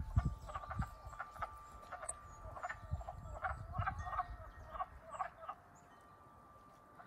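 Wood frogs calling in a breeding chorus: many short calls overlapping in quick succession, thinning out in the last second or so. It is the season's first chorus, the frogs having just woken.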